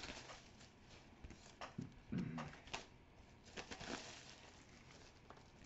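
Faint crinkling and rustling of the plastic shrink-wrap on a wall calendar as it is handled and turned over, in scattered small crackles and clicks.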